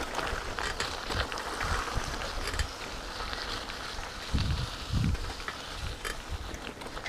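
Wind rumbling on a GoPro's microphone while riding, with a steady hiss and two stronger low gusts about four and a half and five seconds in.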